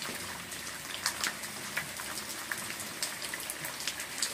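Ballpoint pen writing on paper on a clipboard: scratchy strokes with scattered short ticks, over a steady background hiss.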